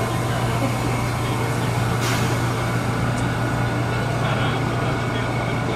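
New York City subway train running in the station: a steady low hum and rumble, with a brief hiss about two seconds in.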